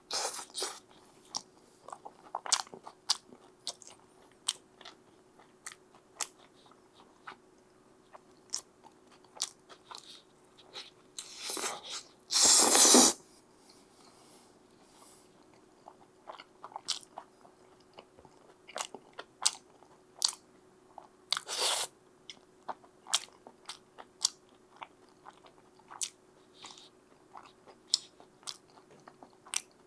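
Close-miked pizza eating: crunchy bites and chewing, heard as many short crunches, with one much louder noise about a second long near the middle.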